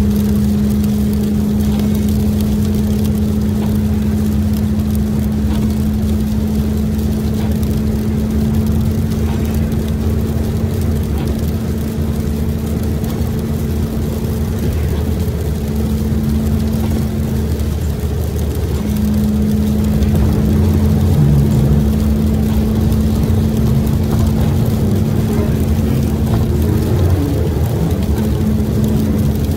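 Road noise inside a vehicle cabin at freeway speed on wet pavement: a steady low rumble of engine and tyres with a constant hum that drops out twice briefly about halfway through.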